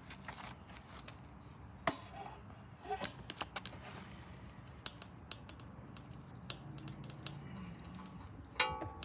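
Scattered light clicks and taps from handling around a lawn mower engine. About 1.9 and 3 seconds in, and again near the end, there are sharper clicks; the loudest, near the end, is a ringing metallic clink.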